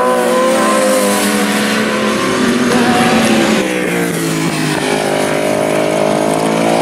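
1000cc superbike racing engines running at high revs, several at once, with one bike passing and its pitch dropping about four seconds in.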